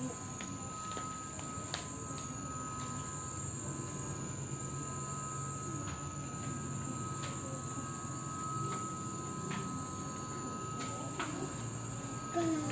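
Steady indoor room tone: a thin, high, constant whine with a few faint clicks and taps. Near the end a brief pitched voice sound.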